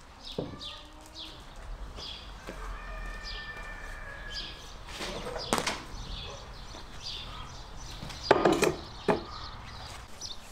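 Small birds chirping throughout. A few wooden knocks come about halfway through, then a louder clatter near the end as a metal burner stand is set down on a board on top of a wooden barrel.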